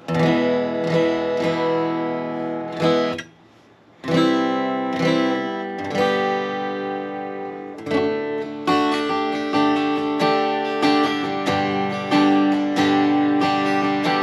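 Dreadnought acoustic guitar played with a pick: a chord is strummed and left to ring, then damped about three seconds in. After a short pause, strummed chords and picked notes carry on, with strums coming roughly every half second in the second half.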